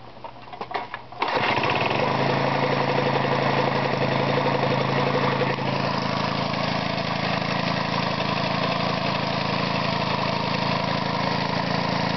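Homemade air compressor converted from a Briggs & Stratton engine, with a high-compression cylinder head and a light-sprung inlet valve opened by suction, starts up suddenly about a second in and then runs steadily, pumping air into its tank. A few faint clicks come just before it starts.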